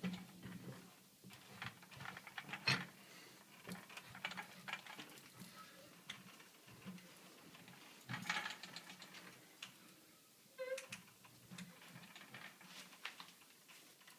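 Irregular light clicks and knocks of hand work on a hydraulic tool and its fittings on a membrane module.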